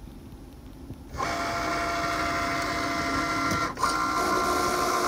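Cricut vinyl cutting machine starting up about a second in and running with a steady motor whine as it cuts a vinyl stencil, with a brief break just before four seconds in.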